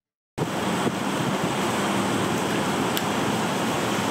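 Steady heavy rain falling on grass and leaves, an even hiss that cuts in abruptly about half a second in.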